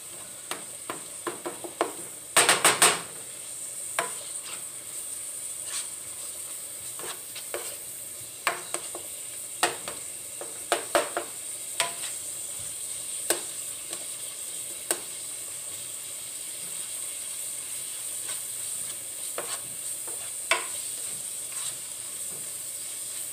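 Ground chuck frying in a pan with a steady sizzle, nearly cooked through, while a utensil knocks and scrapes against the pan as the meat is stirred. There is a burst of loud knocks about two and a half seconds in, then scattered taps that thin out toward the end.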